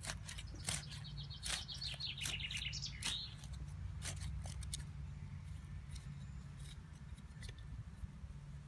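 Hand trowel scraping and digging into lumpy garden soil in a series of short scrapes, thinning out after about five seconds. A small bird sings a rapid trill about two seconds in.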